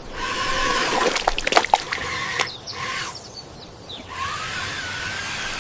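Water and mud splashing and sloshing with a steady hiss, with a quick run of sharp clicks about a second in and a quieter stretch past the middle. Faint wavering tones run through it.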